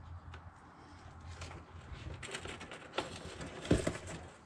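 Hands handling electrical wires and the plastic outlet parts: scattered rustling and small clicks, with two sharper knocks about three seconds in, over a low steady hum.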